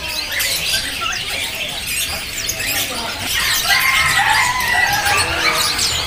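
Caged budgerigars chattering: many quick, high overlapping chirps and squeaks, with a few held whistled notes about halfway through.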